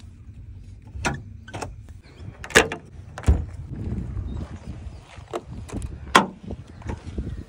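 Mahindra Thar's bonnet being released: sharp plastic-and-metal clicks as the release lever under the dashboard is pulled, a loud clack about two and a half seconds in, then a low thump. Another sharp click comes about six seconds in as the catch at the front of the bonnet is worked.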